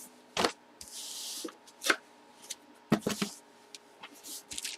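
Items being handled on a table: a few sharp knocks and taps, with a short rustle, like plastic or paper packaging, about a second in.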